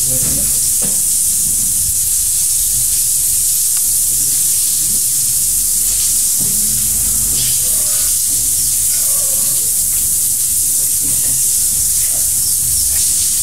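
Water spraying from a hose over a baby elephant, a steady hiss, with faint voices behind it.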